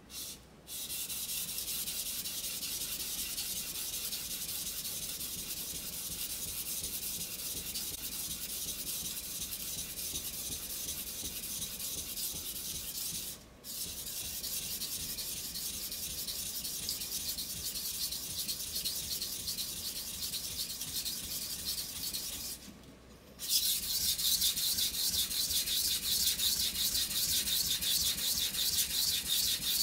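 Steel kitchen knife blade being stroked back and forth on a wet whetstone, a steady high scraping. It breaks off briefly twice, then stops for about a second and resumes louder.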